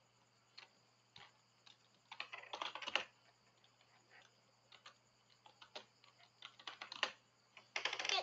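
Typing on a computer keyboard: scattered key clicks, a quick run of keystrokes about two seconds in, and further clicks through the second half.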